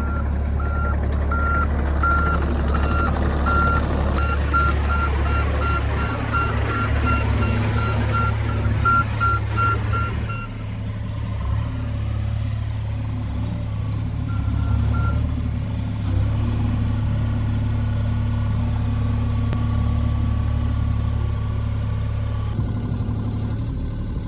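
An engine running steadily, with a repeating electronic warning beep, about two beeps a second, that stops about ten seconds in. A few fainter beeps follow a few seconds later.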